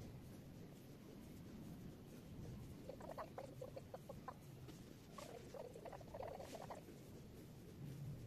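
Faint squeaks and clicks from fingers pinching and working the skin of the cheeks, in two short runs of rapid small sounds.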